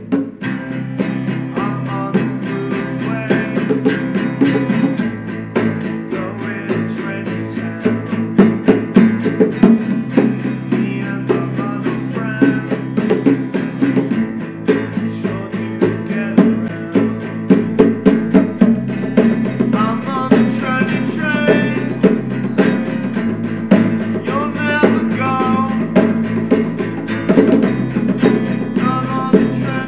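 A band playing a song with a steady drum beat, bass and guitars.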